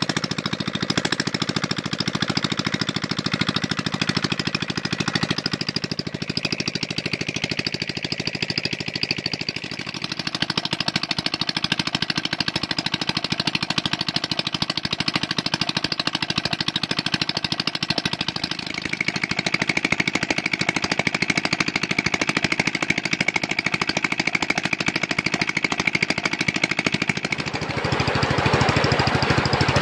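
Old Kubota stationary diesel engine running without a muffler, its bare exhaust giving a loud, rapid, even pulsing as it drives a water pump. Near the end, muddy water gushes out of the pump's outlet pipe over the engine noise.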